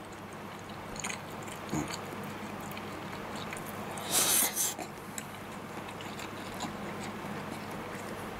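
Eating sounds: chopsticks clicking lightly against a bowl, a loud short sucking-in about four seconds in as a mouthful of tofu and green pepper stir-fry over rice goes into the mouth, then soft chewing, over a faint steady hum.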